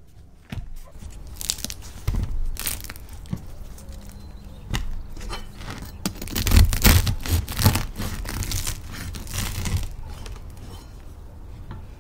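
Serrated bread knife sawing through the hard, tough crust of a round sourdough loaf in repeated rasping strokes. The strokes are loudest about halfway through and die down near the end.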